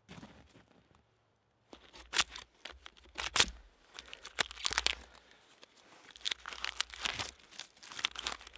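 Footsteps crunching through snow, irregular crisp crunches roughly once a second.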